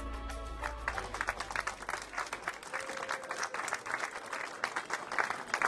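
The last notes of background music stop about a second in and give way to an audience applauding.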